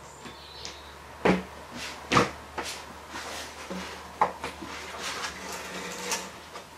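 Handling noise from gloved hands working around a van's windscreen: a few sharp knocks and clunks, the loudest about a second and two seconds in, with scraping and rustling between them. Near the end a wiper arm is lifted.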